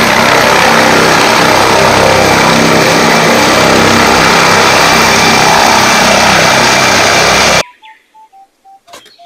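Helicopter's turbine engines and main rotor running at full power as it lifts off, a loud steady sound with a thin high whine. It cuts off abruptly about seven and a half seconds in, leaving faint descending electronic beeps and a click.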